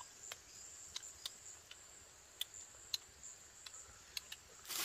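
Insects droning steadily at a high pitch, with scattered sharp ticks and a short burst of rustling near the end.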